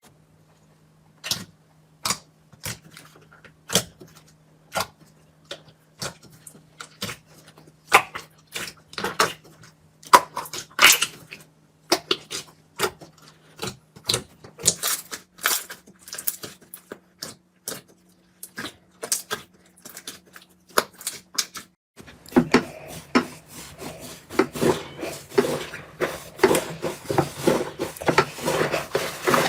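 Slime being pressed and pulled by hand, giving sharp clicking pops about once a second. About 22 seconds in the sound changes abruptly to a denser, continuous crackle of small pops.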